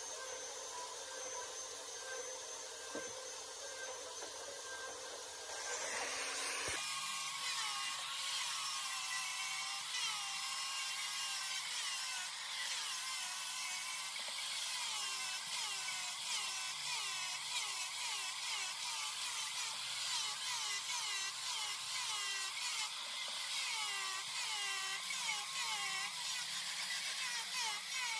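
Electric angle grinder with a sanding disc, running and sanding a wooden block, its pitch dipping and recovering about twice a second. It starts suddenly about seven seconds in, after a quieter steady hum.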